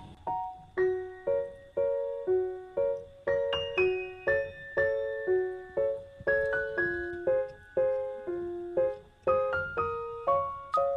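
Background music: a gentle piano melody of struck notes that fade, at about two notes a second.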